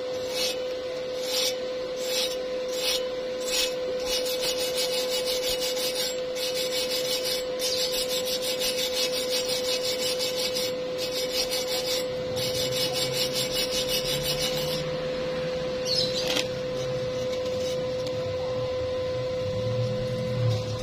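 Steel wire brush scrubbed by hand over a fresh weld bead on steel tube, cleaning off slag and spatter. It starts with separate scratchy strokes, turns to fast continuous scrubbing after a few seconds, and eases back to occasional strokes in the last few seconds.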